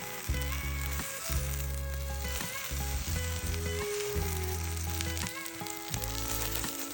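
An oat and egg omelette sizzling as it fries in a pan, with a steady hiss, under background music with a bass line and a melody.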